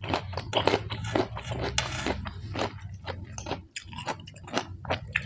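A person chewing a mouthful of rice noodles and raw vegetables close to the microphone: an irregular run of wet smacks and mouth clicks.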